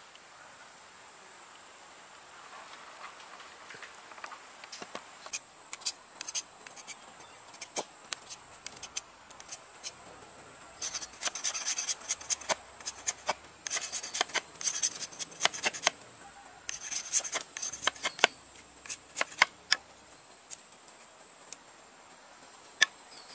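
Machete blade shaving and splitting thin bamboo sticks on a wooden stump: a series of sharp scraping strokes and taps, coming in quick runs of strokes through the middle, then fewer and fading near the end.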